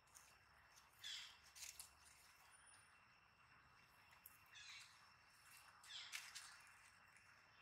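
Near silence: faint outdoor ambience with a steady faint high tone and a few short scratchy sounds, about a second in, around four and a half seconds, and near six seconds.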